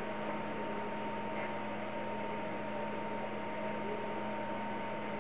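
Room tone: a steady electrical hum over an even hiss, with no other event.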